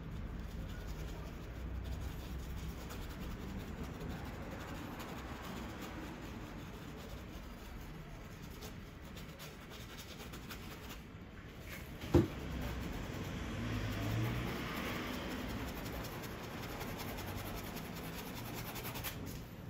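Soft, steady scratching and rubbing of a paintbrush's bristles working oil paint over canvas, with one sharp click about twelve seconds in.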